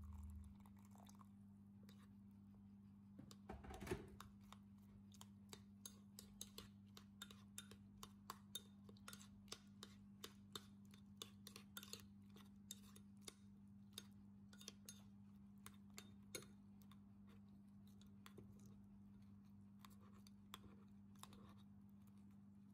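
Faint scattered clicks and scrapes of a metal spoon against the bowl as sliced chilies, shallots and garlic in oil are stirred, about two a second for a stretch, then sparser, with one louder clatter about four seconds in. A steady low hum runs underneath.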